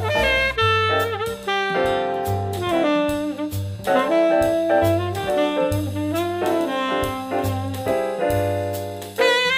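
Background jazz music with saxophone melody over piano, bass and drums.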